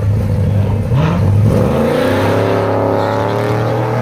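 Two drag-racing cars, a Corvette among them, launching off the starting line: their engines rise in pitch from about a second in as they accelerate hard away down the strip.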